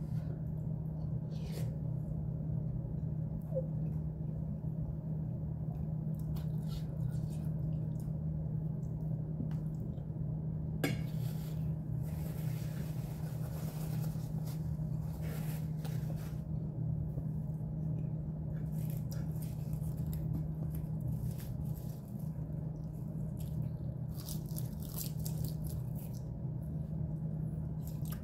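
Wet, squishy mouth sounds of someone chewing baby octopus, scattered soft clicks, over a steady low hum. A paper napkin rustles briefly in the middle.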